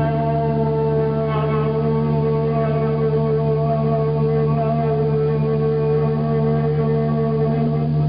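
Instrumental music: a slow melody of long held notes over a steady low drone.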